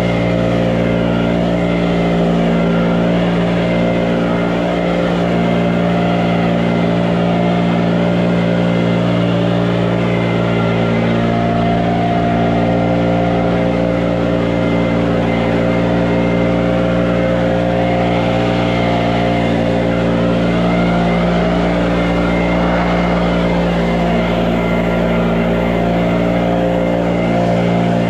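Engine running steadily at a constant speed, with an even drone and no change in pitch.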